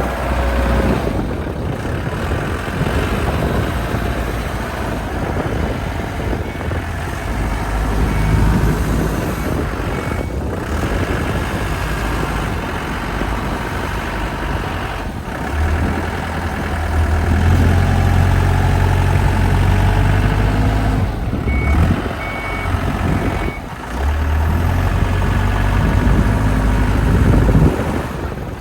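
Forklift engine running and revving under load while lifting a zero-turn mower, with two short runs of high warning beeps.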